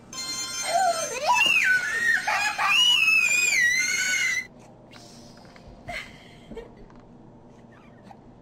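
Toddler crying out in a loud, high-pitched wail that swoops up and down in pitch for about four seconds, then cuts off suddenly.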